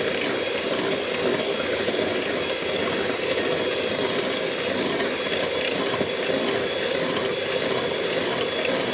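Electric hand mixer running steadily, beating a custard-and-whipped-cream mixture for lemon mousse, with a high steady whine over the motor's hum.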